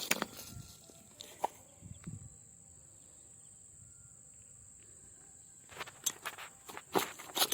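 Scattered short knocks and rustles of handling or footsteps: a few near the start, then a cluster from about six seconds in, over a steady high insect drone.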